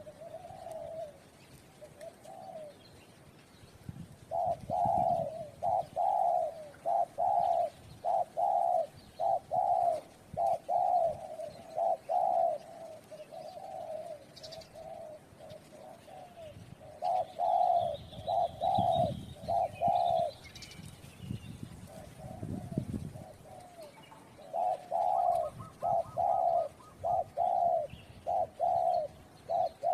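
Spotted doves (tekukur) cooing in long runs of short, repeated coo notes with pauses between the runs. A smaller bird chirps faintly about halfway through.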